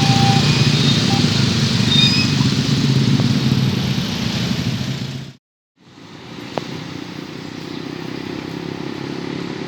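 Loud steady rumble of vehicles passing at a railway level crossing, cut off abruptly about five seconds in; after a short silence, quieter steady traffic noise fades back in.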